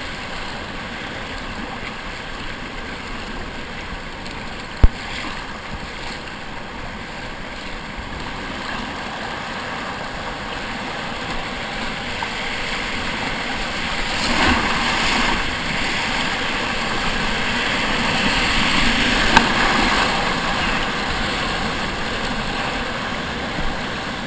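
Whitewater rapids rushing and splashing around a kayak as it is paddled downstream. The rush grows louder about halfway through as the kayak runs through white water, and there is one sharp knock about five seconds in.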